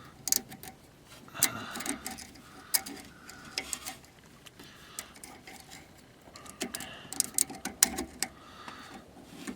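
Sharp metal clicks and taps in scattered clusters as a small clamp is worked and popped onto the rubber boot of a car's inner tie rod.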